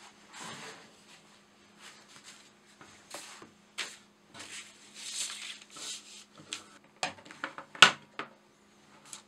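Hands handling things on a wooden tabletop: rustling of a book and paper with scattered light knocks and clicks. Near the end comes a sharp, loud click as a pocket digital scale's hinged plastic lid is flipped open.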